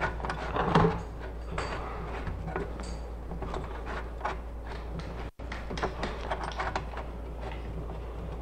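Irregular clicks, taps and rustles of power cables and plug connectors being handled and fitted into a robot control box, over a steady low hum.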